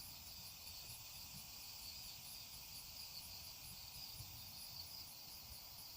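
Night insects chirping in a steady chorus: a continuous high trill with a faster pulsing chirp above it, repeating evenly a few times a second.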